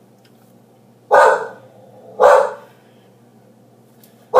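Pet dog barking indoors: two single barks about a second apart, then one more near the end.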